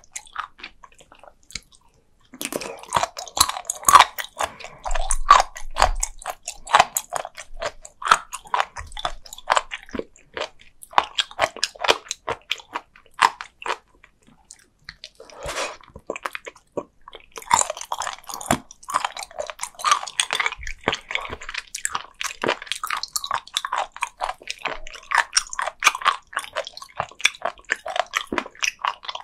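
Close-miked chewing of raw sea cucumber: rapid, crisp crunches of its firm, chewy flesh. The chewing pauses briefly about halfway through, with one short wet sound in the lull.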